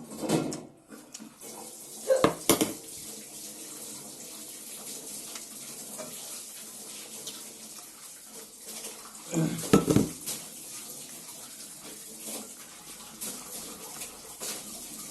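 Water running steadily, as from a tap, with metal dishes and cutlery clattering a few times.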